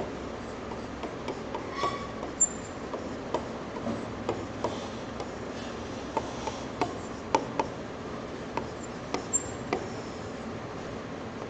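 Stylus tapping and clicking on a tablet screen while handwriting words and drawing lines: irregular light clicks, a couple of dozen over the stretch, over a steady background hiss.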